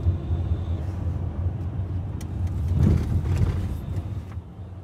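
Car cabin noise while driving in city traffic: a steady low engine and road hum that swells about three seconds in, then drops off near the end.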